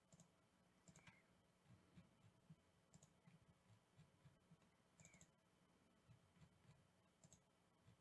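Near silence with faint computer mouse clicks at an uneven pace, a few a second.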